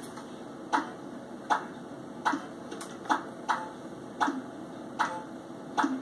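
A run of sharp ticks at a nearly even pace, a little more than one a second.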